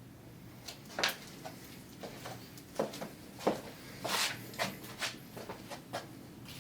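An irregular series of about a dozen light clicks and knocks from objects being handled, the sharpest about a second in and again at about three and a half seconds.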